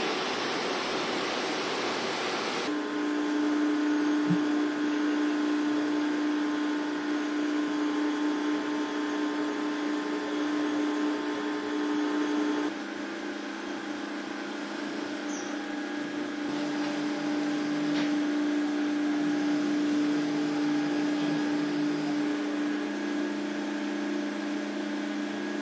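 A broad rushing noise for the first couple of seconds, then a steady mechanical hum with several held tones. The hum shifts slightly about three and thirteen seconds in.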